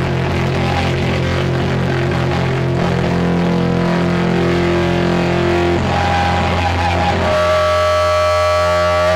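Heavily distorted electric guitar through a stage amp, holding long droning notes that change pitch about three, six and seven seconds in.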